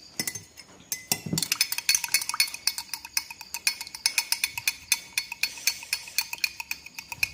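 Metal spoon stirring lime juice and sweet soy sauce in a glass, clinking rapidly against the sides of the glass. The clinking starts about a second in and keeps on quickly.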